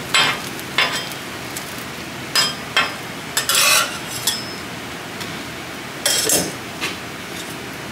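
Metal spatulas scraping and clinking on a flat steel griddle, several short clicks and two longer scrapes, over the steady sizzle of egg frying on a pancake.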